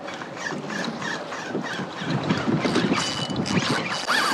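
Choppy sea slapping and splashing against a plastic fishing kayak, with wind on the microphone. Short high chirps repeat through the first half, and a thin steady whine comes in near the end.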